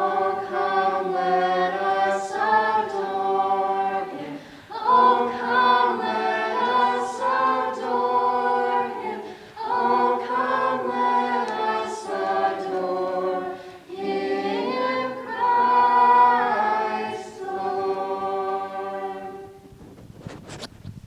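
An a cappella vocal group singing a Christmas carol in harmony, phrase by phrase with short breaths between. The song ends about nineteen seconds in, followed by a few faint clicks.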